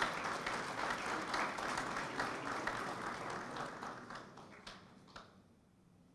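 Audience applauding, thinning to a few last claps and stopping about five seconds in.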